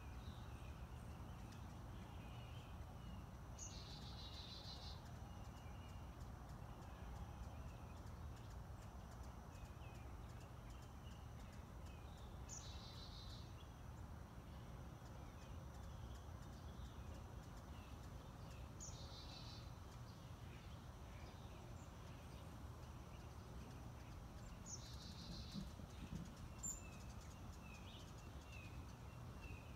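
A bird repeating a short high trill four times, about six seconds apart, over a faint steady low hum.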